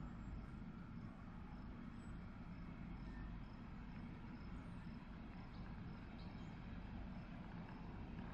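Faint, steady low rumble of an empty BNSF coal train's diesel locomotives idling at a standstill, with a short high chirp repeating about twice a second.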